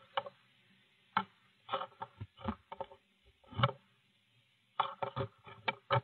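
Irregular taps and scratches on the wooden nest box, about a dozen short knocks and scrapes spread unevenly, heard through the nest-box camera's small microphone.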